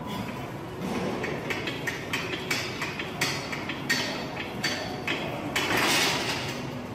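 Heavily loaded Smith machine bar and its stacked weight plates clanking in a run of sharp metallic knocks about two a second, followed by a longer noisy swell near the end.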